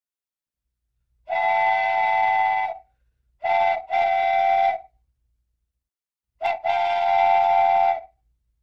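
Steam locomotive whistle sounding a chord of several tones: a long blast, then two more long blasts each led by a brief toot.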